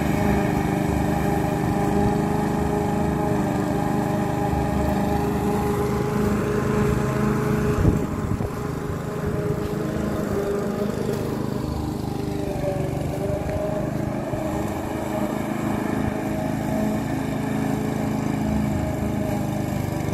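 Duricut 820 walk-behind lawn mower's 159cc engine running steadily under load while cutting grass, its pitch shifting slightly partway through. A single short knock about eight seconds in.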